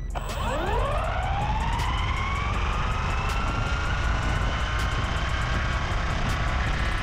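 Electric RC car's motor and drivetrain whining, rising steeply in pitch as the car accelerates hard from near standstill, then settling into a high steady whine after about two seconds, over a low road rumble, heard from a camera mounted on the car.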